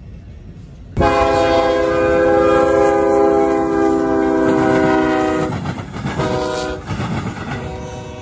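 Freight locomotive's multi-chime air horn: a loud chord starts abruptly about a second in and is held for about four and a half seconds, followed by a shorter blast and a weaker one near the end, over the rumble of the passing train.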